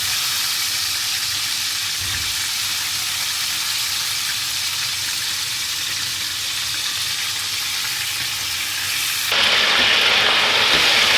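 Soy-calamansi chicken marinade sizzling hard in a pan of hot garlic-infused oil, a steady dense hiss that grows louder about nine seconds in.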